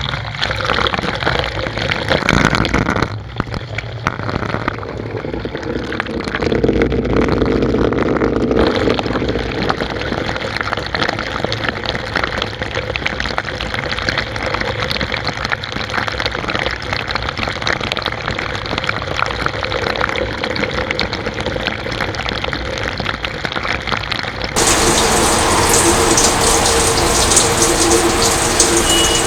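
Water gushing into the drum of a Whirlpool 360 Bloom Wash top-loading washing machine through its water inlet valves, as the self-test checks the valves. A steady rushing pour that grows louder and hissier about 25 seconds in.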